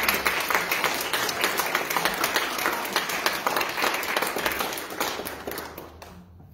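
A small congregation applauding with many hands clapping together, dying away near the end.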